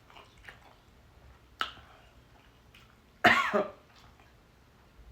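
A single short cough about three seconds in, the loudest sound, after a sharp click a second and a half in.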